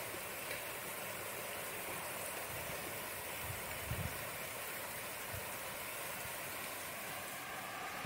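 Steady rain falling in the countryside, an even hiss with no change in strength. A couple of brief low thumps about four and five seconds in.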